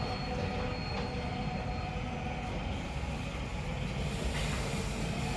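Automatic sliding gate running: the DEA REV 220 operator's motor drives the heavy gate along its ground track with a steady rolling rumble and faint whine.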